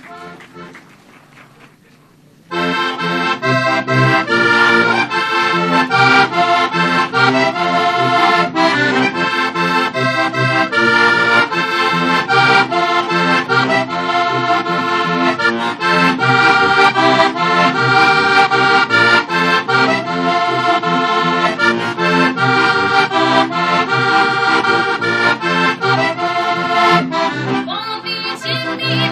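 Heligonka, a Slovak diatonic button accordion, starting a folk tune about two and a half seconds in and playing on, with melody over a pulsing bass.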